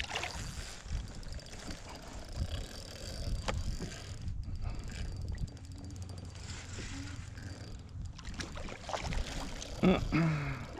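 Steady low rumble and splashy water noise on a fishing kayak, with a few sharp knocks from handling. A short voice-like sound with falling pitch comes near the end.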